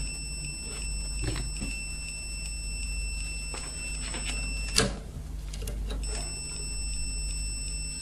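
Digital multimeter's continuity buzzer giving a steady high-pitched beep while the probes rest on the transformer's near-zero-ohm filament winding at the magnetron terminals, the sign of an unbroken, very low-resistance winding. It cuts out for about a second just after the middle, with a click as the probes shift, then sounds again.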